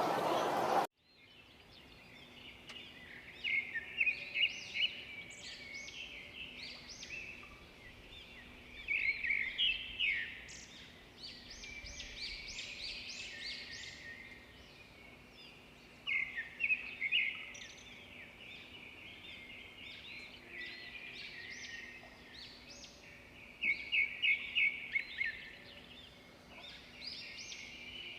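Birds singing: bursts of rapid, high chirping notes that come in loud clusters every six or seven seconds, with fainter calls between.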